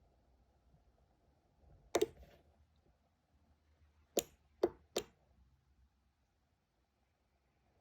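Sharp clicks from a 433 MHz four-channel learning relay module and its remote being button-pressed during programming: one about two seconds in, then three in quick succession a couple of seconds later.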